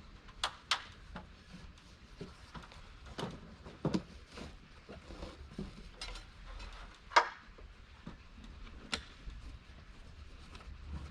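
Irregular sharp clicks and knocks of hard objects being handled, a dozen or so scattered through, the loudest about seven seconds in.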